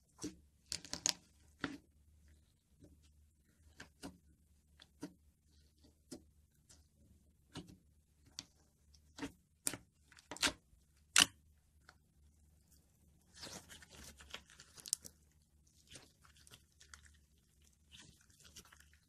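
Clear slime being poked and squeezed by fingers, giving sharp sticky pops and clicks about once a second, with a denser run of crackling about two-thirds of the way through.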